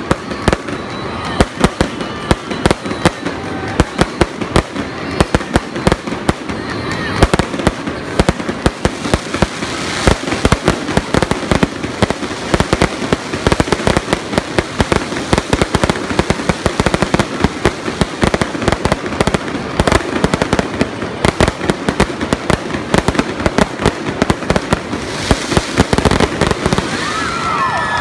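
Aerial fireworks display: a dense, unbroken barrage of rapid cracks and bangs from bursting shells.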